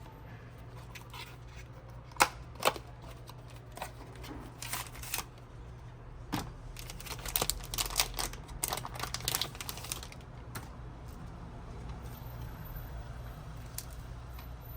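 Scattered small clicks, taps and rustles of hand tools and plastic phone parts being handled during a phone screen repair, with two sharp clicks about two seconds in and a busy run of clicking about halfway through, over a steady low hum.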